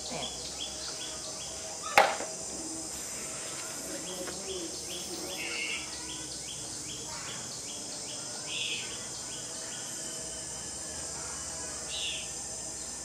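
Steady insect chorus with an even, rapid chirping pulse, like crickets, with a few short higher chirps over it. A single sharp knock sounds about two seconds in.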